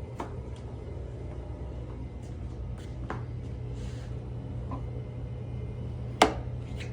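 Light scattered clicks and taps of hand work in a car's engine bay, with one sharp knock about six seconds in, over a steady low hum.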